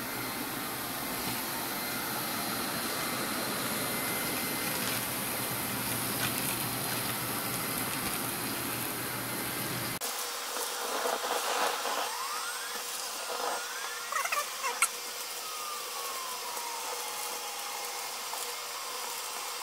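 Record Power CamVac dust extractor running, sucking wood shavings out of a bucket through a hose and a Mullet M5 mini cyclone. About halfway the steady noise turns to a thinner, higher hiss, with a few short rising whistles, some sharp clicks and one long falling whistle.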